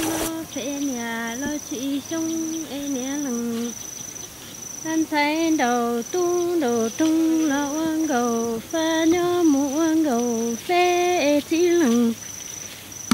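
A woman singing a slow, wordless-sounding melody in short phrases of held notes that slide downward at their ends, with brief gaps between phrases. Behind it a cricket chirps in a steady high pulse.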